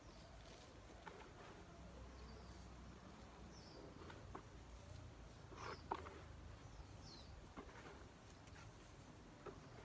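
Faint outdoor quiet with short bird chirps every second or two, and a few soft rustles and taps from hands working garden soil.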